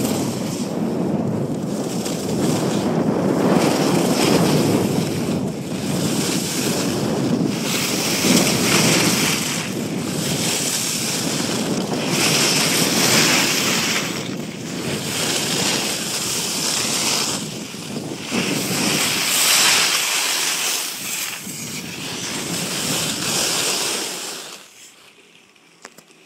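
Wind buffeting the microphone at speed, with the hiss and scrape of edges on packed snow rising in repeated surges, turn after turn. The sound falls away sharply near the end.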